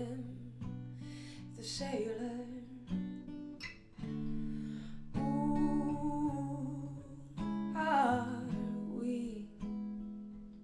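Live song: acoustic guitar strummed in chords under a woman's singing voice holding long notes.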